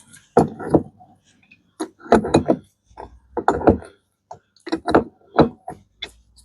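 Irregular knocks and clunks of tools on metal, mixed with grunting and heavy breathing from the effort, as a stuffing box is worked and unscrewed off a boat's stern tube.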